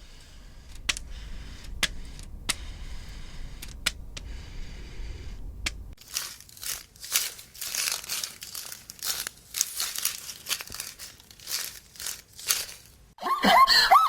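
Rustling, crinkling noises: a few scattered clicks over a low rumble at first, then from about six seconds in a run of quick, irregular rustling strokes.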